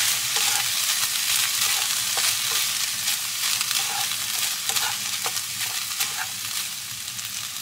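Chicken, pasta and peas sizzling in a frying pan while a utensil stirs them, with scattered light clicks and scrapes of the utensil against the pan. The sizzle eases slightly toward the end.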